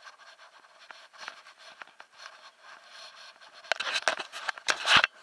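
Handling noise from a handheld camera: faint scattered clicks and light rubbing, then a loud burst of scraping and crackling rubbing against the microphone about four seconds in, cutting off just before the end.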